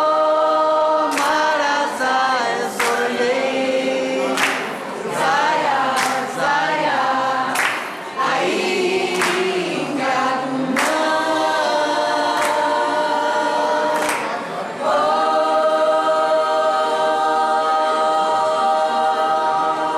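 A group of mixed voices singing a song together, with an accordion, holding long notes at the start and again over the last few seconds. A sharp beat falls roughly once a second through the middle.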